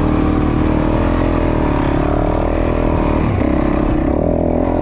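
Off-road motorcycle engine revving, its pitch rising and falling as the throttle is worked, with a short dip about three seconds in.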